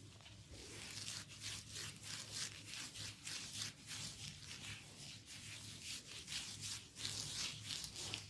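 Hands rubbing and working an oiled scalp and hair in a head massage: a continuous run of short rubbing strokes, a few each second, over a low steady hum.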